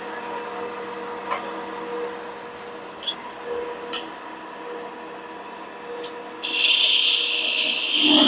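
Wood lathe running with a steady hum and a few light clicks. About six seconds in, a turning tool starts cutting into the spinning walnut blank, giving a loud, rough shaving sound that carries on.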